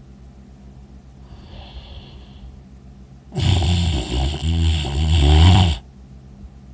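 A sleeping man snoring: a faint breath, then one long, loud snore lasting over two seconds.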